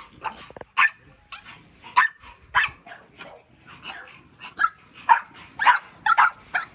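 Bully puppies yapping, short sharp yaps coming about two a second.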